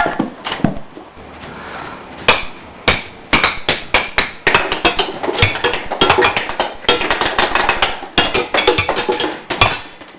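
A rapid, irregular series of sharp knocks and bangs, several a second, starting about two seconds in after a quieter stretch.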